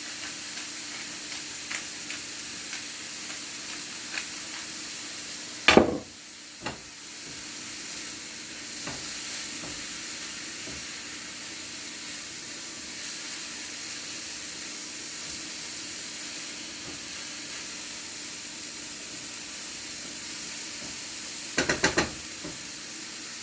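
Sliced mushrooms and onions sizzling steadily in hot olive oil in a frying pan as they sauté down, with a utensil knocking against the pan as they are stirred, loudest about six seconds in and again near the end.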